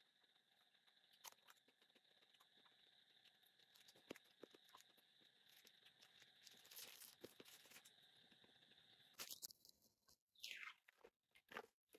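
Near silence with faint crunches and clicks of someone eating ice cream, a few sharper clicks near the end.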